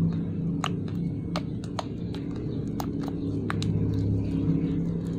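Freshly activated homemade slime being squeezed and played with by hand, giving irregular small clicks and pops, about ten in five seconds, over a steady low hum.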